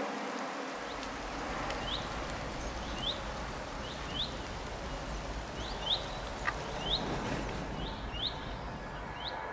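Small birds chirping: short, high chirps about once a second, often in quick pairs, over a steady rushing hiss.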